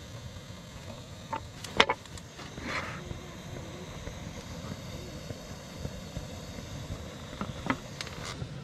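Steady low outdoor background rumble with a few light clicks and knocks from food being handled on a wooden plate, the sharpest about two seconds in and two smaller ones near the end.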